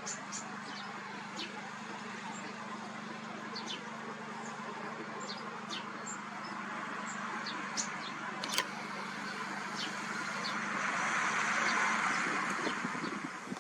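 Wind blowing across the microphone, swelling into a stronger gust about ten seconds in and easing near the end, with scattered short, high ticks and a steady low hum underneath.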